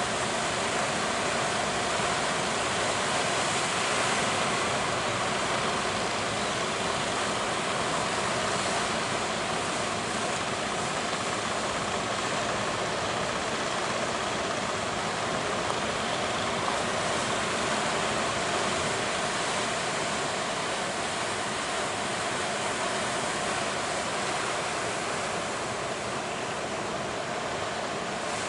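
Big ocean waves breaking, heard as a steady wash of noise.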